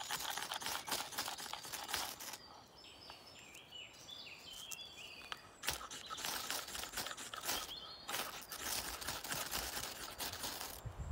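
The spine of a 1075 carbon steel bushcraft knife scraped hard and fast down a ferro rod to throw sparks, in three long runs of rapid rasping strokes. Birds call in the pause between the first and second runs.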